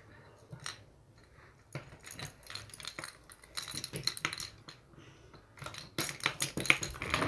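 A small padlock and its key being handled at a cabinet knob: irregular light metallic clinks and clicks, thickening toward the end.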